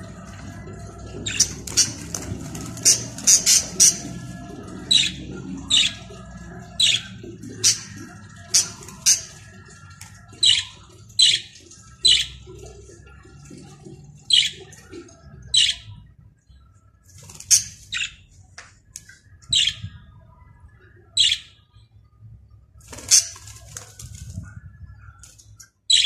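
Caged budgerigars giving short, sharp chirps, about two a second in the first few seconds, then thinning to one every second or two.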